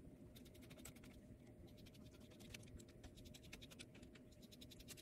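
Faint, rapid, irregular ticking and scratching of a screwdriver turning the captive back-cover screws of a laptop.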